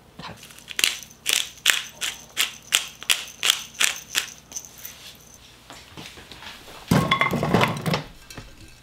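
Hand pepper grinder twisted over a bowl of seasoning paste: about a dozen short crunching grinds, some three a second. Near the end comes a second of louder clatter as chunks of raw radish are tipped into a nonstick wok.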